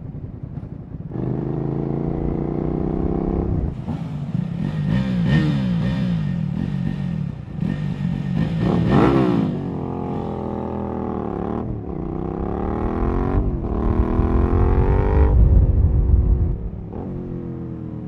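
Suzuki SV650's V-twin with a Cobra aftermarket exhaust accelerating hard through several gears: the pitch climbs in each gear and drops at each upshift. Another engine's pitch rises and falls over it in the middle.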